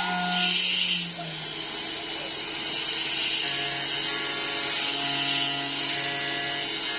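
Home-built CNC milling machine cutting aluminium: the spindle and servo drives whine steadily over a hiss of cutting. About a second in the level dips and the pitch drops, then the cut carries on.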